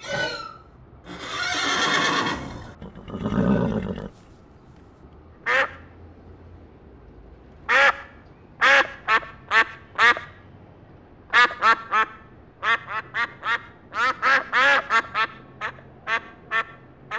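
Duck quacking in quick runs of short calls, standing in for a character's spoken lines. Earlier, a breathy horse-like blow and a lower call.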